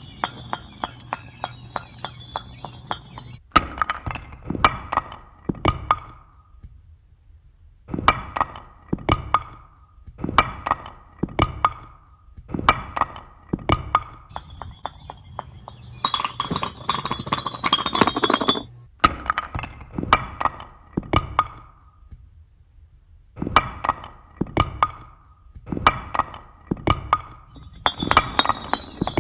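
Percussive sound effects of struck blocks and chimes: quick knocks and clinks with a short ring, played in clusters of several hits separated by brief pauses. Near the start, about midway and again near the end, denser clicking plays under a steady high chime-like ringing.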